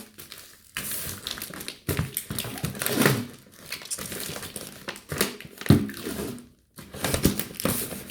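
Bubble wrap and cardboard packing being handled: irregular bursts of crinkling and rustling with a few knocks, and a brief pause near the end.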